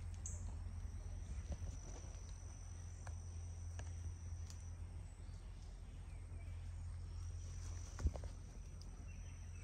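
Insects singing a steady, thin, high-pitched note over a low rumble. There are a few faint clicks, and a soft thump about eight seconds in.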